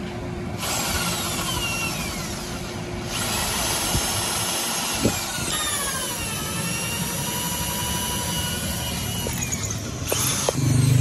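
Handheld corded electric drill running, boring holes through a wooden knife-handle blank. The motor's whine dips in pitch a few times. There are a couple of clicks as the drill stops near the end.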